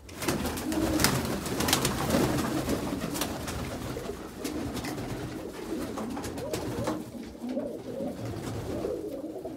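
Domestic pigeons cooing in a crowded breeding loft, several birds at once in an overlapping murmur, with scattered clicks and rustles.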